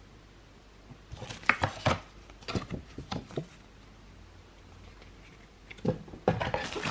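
A cardboard product box being opened and its packaging handled: short scrapes, taps and rustles in a burst of a couple of seconds starting about a second in, and again near the end.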